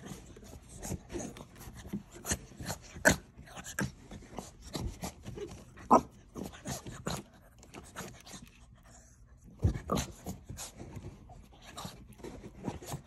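Blue French bulldog puppy squirming and rolling on its back on shaggy carpet: irregular short scuffing and rubbing noises, mixed with the puppy's breathing.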